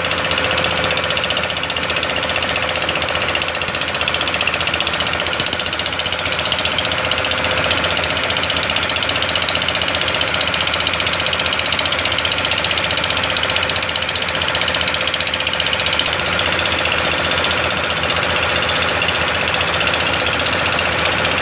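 An engine running steadily close by, with a fast, even mechanical clatter.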